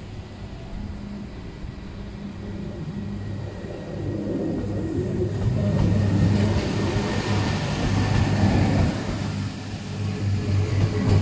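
Irish Rail 22000 Class InterCity railcar, a diesel multiple unit, pulling into the platform and rolling slowly past close by. Its underfloor diesel engines give a steady low hum that grows louder as the carriages come alongside. A thin high-pitched whine sets in about six seconds in and strengthens as the train slows.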